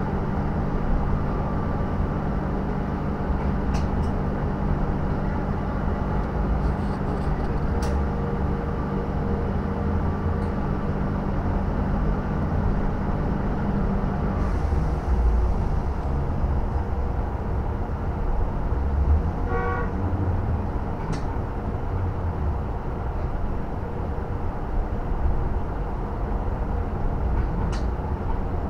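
Cabin noise of a KAMAZ electric bus under way: a steady low rumble of tyres and road, with a hum from the drive that cuts out about halfway through. A few light rattles, and a short toot about two-thirds through.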